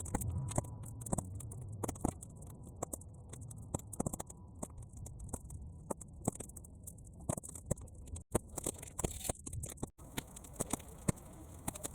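Bonfire of half-dried weeds burning, with frequent irregular snaps and pops over a low rumble, sped up to triple speed.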